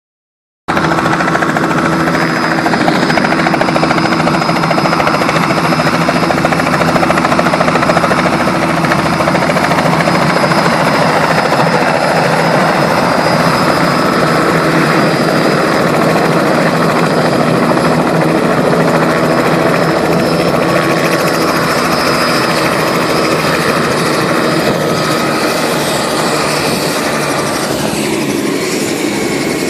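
Robinson R66 helicopter's Rolls-Royce RR300 turboshaft engine whining steadily over loud rotor noise as it comes in and hovers low to land.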